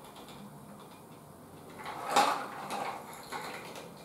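Metal cocktail shaker full of ice tilted to pour into shot glasses: a short clatter of ice sliding and rattling inside the shaker about two seconds in, with lighter rattling for a moment after.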